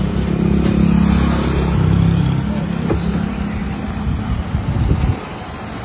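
A parked SUV's engine idling with a steady low hum, which cuts off suddenly about five seconds in as the engine is switched off.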